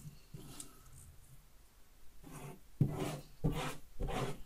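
Hands rubbing and sweeping a static-cling whiteboard sheet flat against a wall: faint scraping at first, then a run of quick, louder strokes from about two seconds in.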